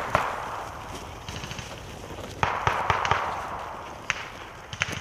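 Gunfire echoing through woodland: two sharp shots at the start and a quick string of shots about two and a half seconds in, each trailing off in a long echo, with single cracks near the end.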